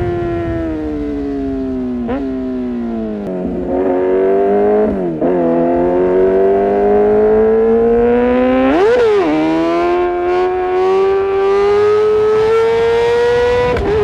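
Kawasaki ZX-6R inline-four running at high revs through an Arrow Pro-Race exhaust. Its note falls over the first few seconds, broken by quick throttle blips, then climbs steadily, with one sharp blip about nine seconds in.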